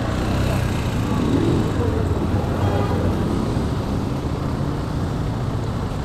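Motorcycle engine idling at a standstill, a steady low rumble, mixed with the noise of surrounding street traffic.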